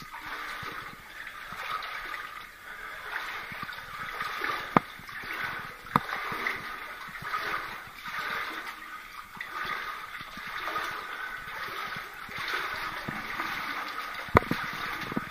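Wading steps through shallow water in a narrow rock tunnel: repeated splashing and sloshing that swells and fades with each stride. Three sharp knocks cut through, two about five and six seconds in and one near the end.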